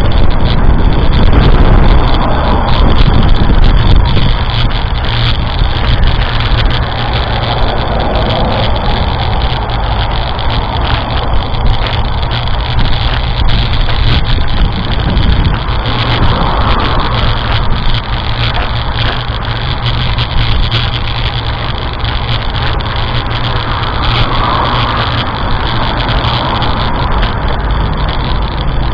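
Strong wind buffeting the microphone in a deep, continuous rumble, loudest in the first few seconds and then easing slightly.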